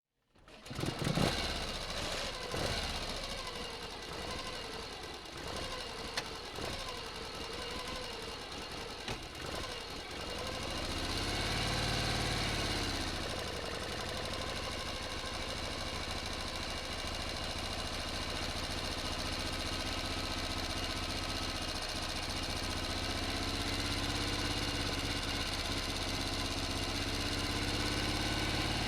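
Motorcycle engine running, uneven for the first ten seconds or so. It revs up and back down once around the middle, then settles into a steady idle.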